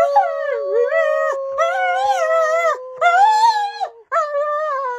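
A shepherd-type dog howling along with a person. A long, steady howled note runs under the dog's wavering howls, which break off and start again four times, each lasting about a second.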